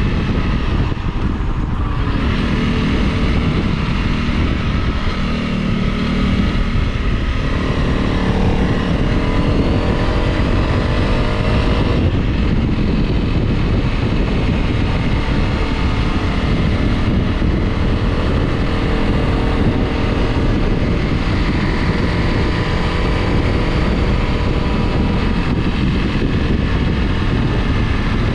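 Honda CRF Rally's single-cylinder engine running while the motorcycle is ridden off-road, with a dense rumble underneath. The revs climb for several seconds, then drop abruptly about twelve seconds in, as at a gear change, and run steadier after.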